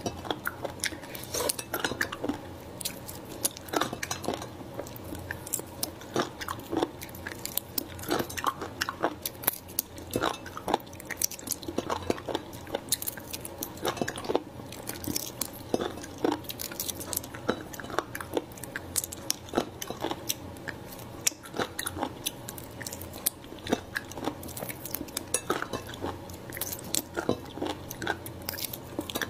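Close-miked eating of small raw shellfish: irregular sharp clicks of shells tapping the ceramic dish and being pried apart by hand, mixed with wet chewing.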